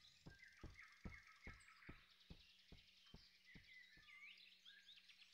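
Faint forest ambience: birds chirping softly, with a quick, even ticking high up. A series of soft taps, about two or three a second, fades away over the first four seconds.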